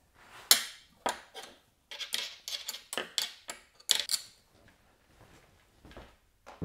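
Irregular metal clicks and clinks of an Allen key working a table top's corner screws loose from underneath, busiest in the first four seconds, then fainter ticks.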